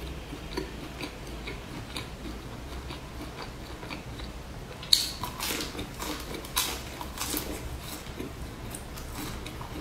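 A person chewing, with small mouth clicks, then a sharp bite into a scored, spice-coated fried sausage about halfway through, followed by a dense run of crackly chewing.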